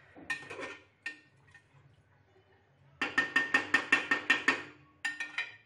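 Metal ladle knocking against a large aluminium cooking pot: a clatter about a quarter of a second in, then a quick run of about a dozen ringing taps, roughly eight a second, lasting a second and a half, and a few more taps near the end.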